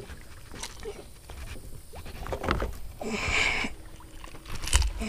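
Light knocks and rustling as a landed largemouth bass flops on a wooden pier deck and is picked up by hand, with a louder rustle about three seconds in and a low thump near the end.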